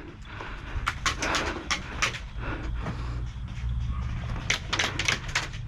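Airsoft gunfire: a series of sharp, irregular shots, a cluster of them about a second in and another cluster near the end, over a steady low rumble.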